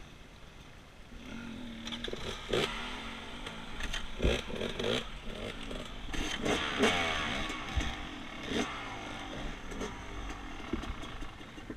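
Yamaha YZ250X 250cc two-stroke dirt bike engine revving up and down in bursts at low speed over rocks and logs, with several sharp knocks from the bike striking the rocky ground.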